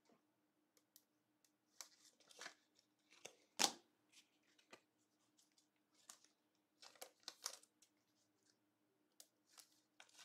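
Faint rustling and scattered light clicks of trading cards being handled and slid into plastic sleeves and top loaders, with one sharper click a little over three and a half seconds in. A faint steady hum runs underneath.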